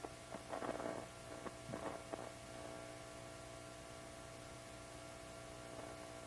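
Yamaha Studio Lord SL-500 amplifier idling with a low, steady mains hum. A few faint scratchy noises come in the first two seconds.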